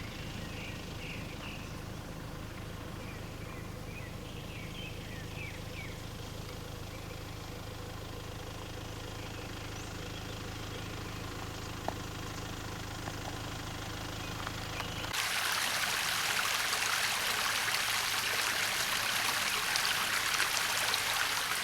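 A steady low hum with a few bird chirps in the first seconds, then about fifteen seconds in an abrupt change to the louder, even rush of a flowing stream.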